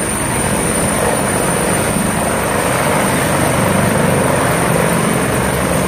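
Helicopter hovering low as it comes in to land: a steady rapid rotor chop with a constant high turbine whine over it.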